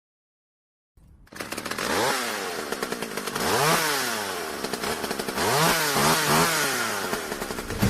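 After about a second of silence, a small engine comes in and is revved up and down several times, its pitch rising and falling, with a quick wavering run of revs near the end.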